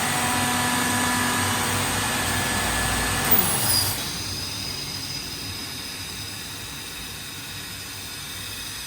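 Kaeser ASD 32 T rotary screw compressor running with a steady hum and whine. About three seconds in there is a short hiss of venting air and a falling pitch, and it runs on more quietly, typical of the compressor blowing off and switching to unloaded running.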